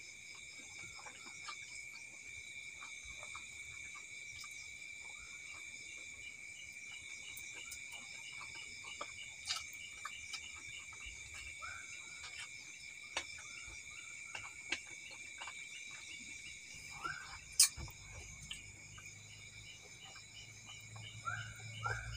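Night chorus of frogs and insects calling, faint and steady: a continuous high trill with rows of rapid pulsing calls above it. Scattered small clicks and knocks sound close by, the sharpest about 18 seconds in.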